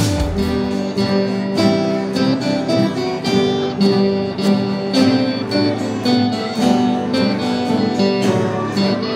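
Acoustic guitar strummed in a steady rhythm, chords played with quick, even strokes.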